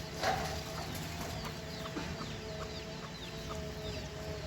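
A flock of chickens calling from inside their coop: a steady stream of short, high, falling peeps and clucks, with a brief louder noise just after the start.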